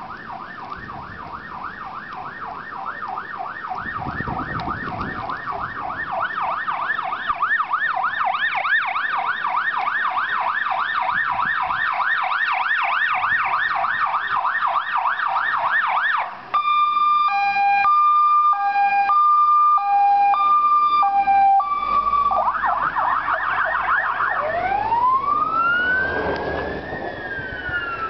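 Electronic sirens of fire-department emergency vehicles responding: a fast yelp that grows steadily louder, switching about halfway through to a two-tone hi-lo, then a short burst of yelp, and near the end a slow wail that rises and then falls.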